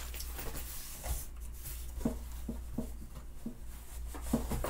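Clothes and a cardboard box rustling as garments are handled and pulled out of the box, with several light knocks, over a steady low hum.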